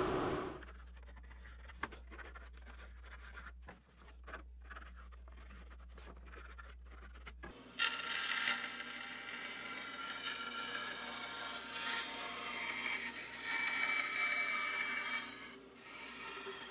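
A bandsaw cutting the curved outline of a laminated wooden kayak paddle blade, a steady rasping cut that starts about eight seconds in and eases off near the end. Before it there is only a low hum with a few faint clicks.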